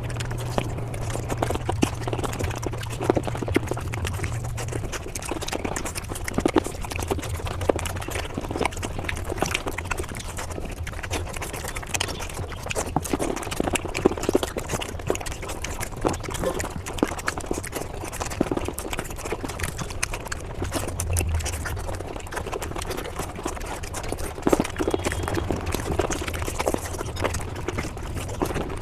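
Mukbang eating sounds sped up five times: chewing and mouth smacks run together into a dense, fast patter of small clicks, over a low steady hum.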